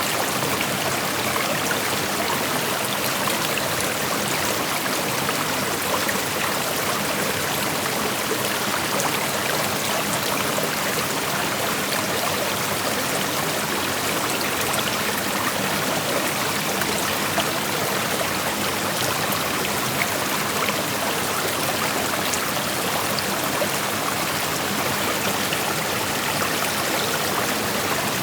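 Small creek flowing and rushing over stones, a steady, even sound of running water.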